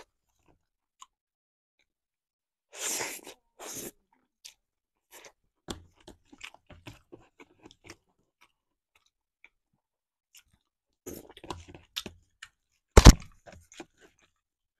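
A person chewing food close to the microphone: scattered wet mouth clicks, with two short noisy bursts about three and four seconds in and a sharp click about thirteen seconds in, the loudest sound, while a fork works in a plastic food tub.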